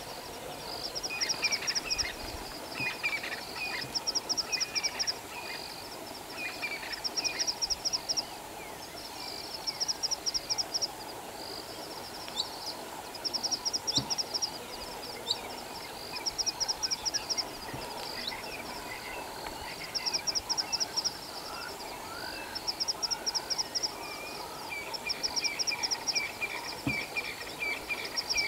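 Savanna wildlife ambience: a high, rapid trill repeating in short bursts about every two seconds, with small birds chirping at the start and again near the end.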